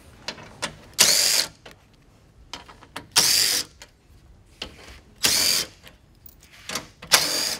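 Cordless impact driver with a 10 mm socket spinning out four grille bolts one after another: four short bursts of about half a second each, roughly two seconds apart, each with a whine that rises and falls, and small clicks of handling in between.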